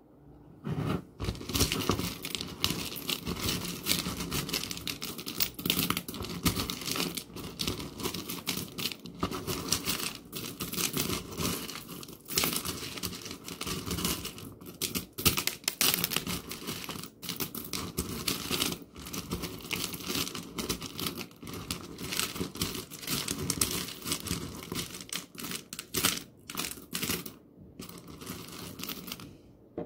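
Thin, flexible plastic cup squeezed and worked by fingers, giving a dense, continuous crinkling and crackling.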